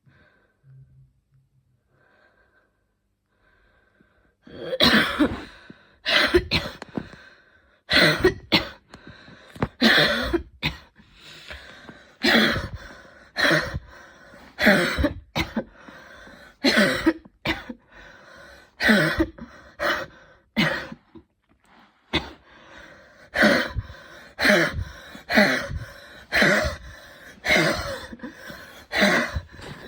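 A woman's intense coughing fit: after a few quiet seconds, a long unbroken run of repeated coughs, about one to two a second.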